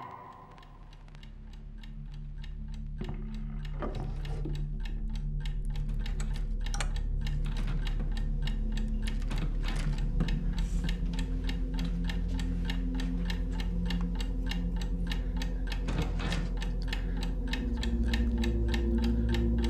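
Horror-film sound design: fast, even ticking like a clock over a low held drone and sustained tones, swelling up over the first few seconds and then holding steady.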